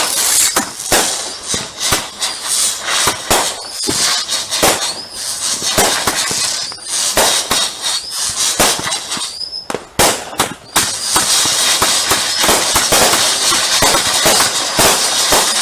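Fireworks going off in rapid succession: many sharp bangs, then a dense, steady crackle from about eleven seconds in, with a few short rising whistles between.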